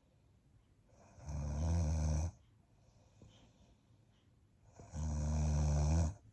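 A woman snoring in her sleep: two loud, low, buzzing snores about four seconds apart, each lasting a little over a second.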